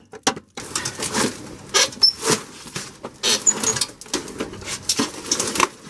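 A couple of sharp knocks as the steering shaft is hammered loose. About half a second in, a busy stretch of scraping and rattling begins, with irregular clanks.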